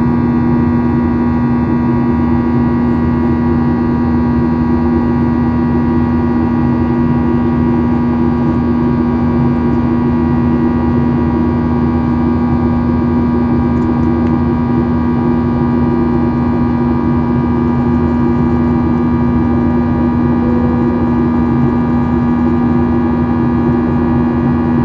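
Boeing 737-800's CFM56-7B jet engines heard from inside the passenger cabin in flight: a loud, steady drone with a strong low hum and fainter higher tones, unchanging throughout.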